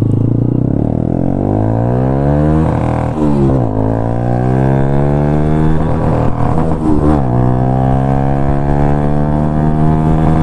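Bajaj Pulsar NS125 single-cylinder engine through an Austin Racing full-system aftermarket exhaust, accelerating under way. The note climbs, falls back sharply at each of several upshifts, then climbs again, with a bassy tone.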